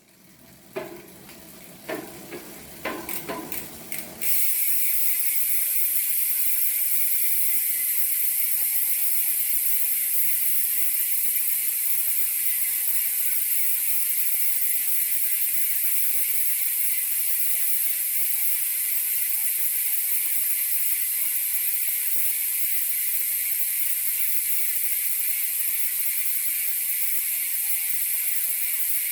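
Speedone Soldier six-pawl MTB hub freewheeling. A few uneven clicks come first, then from about four seconds in the pawls give a steady, loud, high buzz as the wheel coasts, slowly dropping in pitch as it slows.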